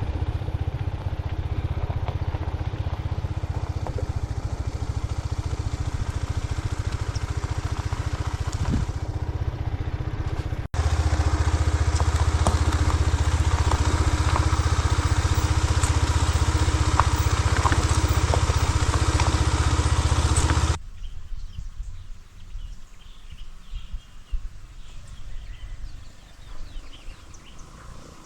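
Motorcycle engine running steadily under way. About eleven seconds in it cuts abruptly to a louder stretch of riding, which stops suddenly about twenty seconds in. What follows is quiet outdoor ambience with birds chirping.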